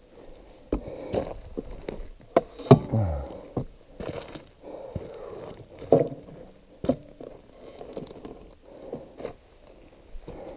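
Boots crunching and shifting on rocky gravel, with scrapes and a few sharp knocks as a parked dirt bike is handled; no engine is running.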